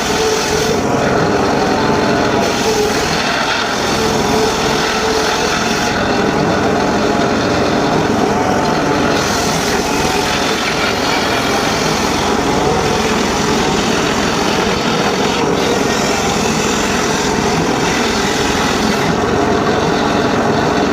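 Homemade circular saw bench running continuously, its blade cutting through teak wood.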